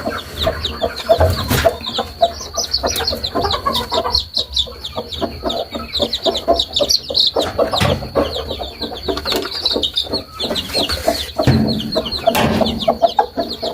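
Many young chicks peeping rapidly and continuously in high, short chirps, mixed with lower clucking from chickens.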